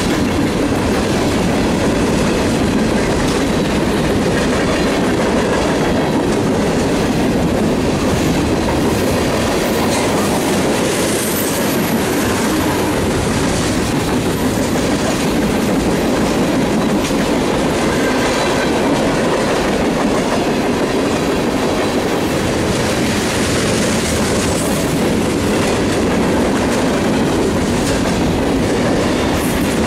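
Freight train cars, covered hoppers and tank cars, rolling past close by: a loud, steady rumble and clatter of steel wheels on the rails.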